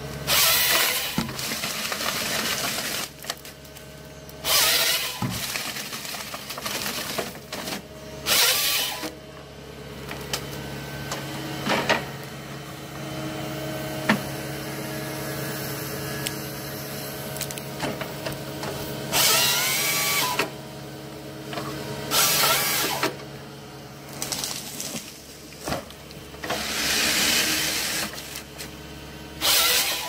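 A motor-driven machine running steadily, broken by about six loud bursts of hissing noise, each lasting one to two seconds.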